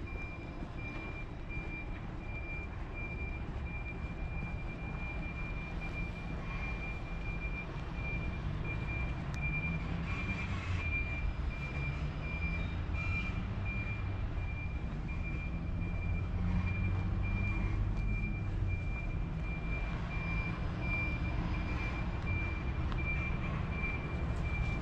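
A vehicle's reversing alarm beeping steadily on one high pitch, with a truck engine running underneath; the engine note rises about ten seconds in as it pulls.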